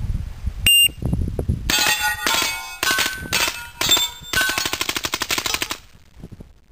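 A short loud beep about a second in. Then a fully automatic 9mm M4-style submachine gun fires six rapid bursts, the last one the longest, and the steel target plates ring under the hits.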